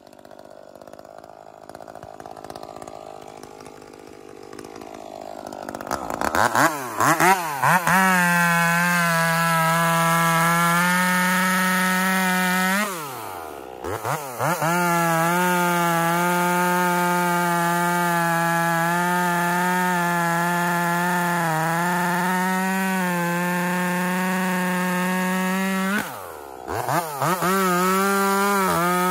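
Modified Echo 2511 25cc closed-port two-stroke chainsaw running low at first, then blipped up to full throttle about six seconds in and held at a steady high whine. Twice, about thirteen and twenty-six seconds in, the revs drop away, and each time it is revved straight back up to full throttle.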